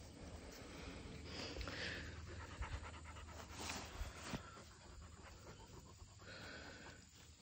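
A puppy panting softly.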